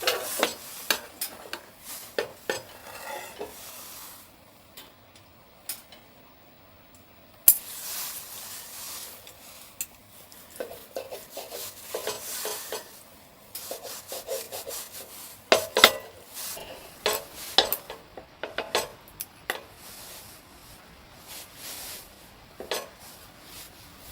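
Irregular clinks, scrapes and rubbing of objects being handled, in uneven clusters with short pauses.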